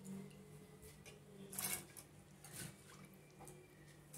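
Faint clinks and scrapes of a steel ladle scooping soaked pearl millet and dal out of water in a steel bowl and tipping it into a steel mixer-grinder jar, the loudest clink a little under two seconds in.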